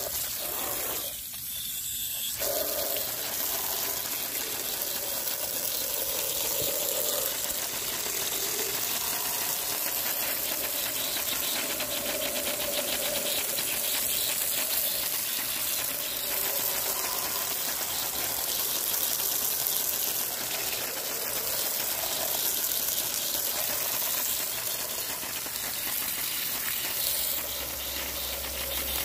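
A jet of water from a hose spraying steadily and splashing onto plastic toy vehicles and wet paving as they are washed of mud.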